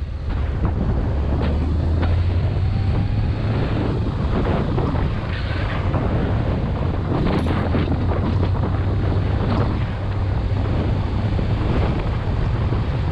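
Motorcycle riding at a steady speed, its engine a low steady hum under heavy wind buffeting on the microphone.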